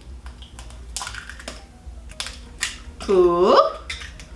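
An egg being cracked open over a mixing bowl: a scatter of short, sharp clicks and crackles of eggshell.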